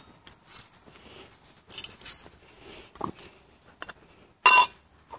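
Light metallic clicks and scrapes of a knife blade working the hot pot stand off a small tin Swiss emergency stove, then a louder ringing metal clank about four and a half seconds in as the stove parts and lid are handled.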